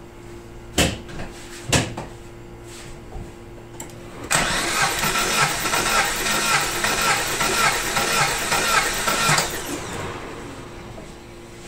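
Two sharp clicks, then a Chevy Aveo four-cylinder engine turned over by its starter for about five seconds with a compression gauge fitted to cylinder 2, in a steady pulsing rhythm. The cylinder builds to about 180 PSI, a very good reading.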